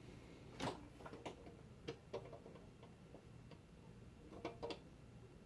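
Faint, irregular clicks and taps of metal parts being handled as the annealer's nozzle extension and nozzle are positioned by hand.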